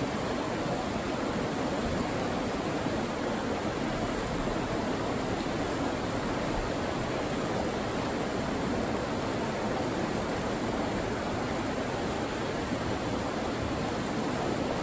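Steady rush of fast river rapids churning over rocks.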